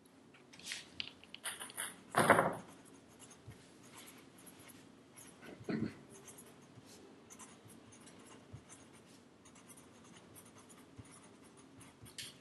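Pen writing on paper: faint, scattered scratching strokes, with a short louder noise about two seconds in and a smaller one near six seconds.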